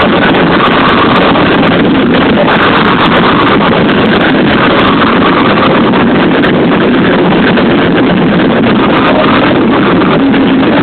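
Live band at full volume, picked up by an overloaded phone microphone so that the music is clipped into a steady, dense, distorted wash with no clear notes.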